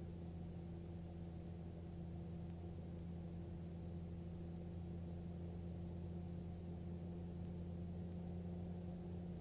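Magni M24 gyrocopter's engine and pusher propeller droning steadily in cruise flight: a faint, even, low hum with a few constant tones and no change in pitch.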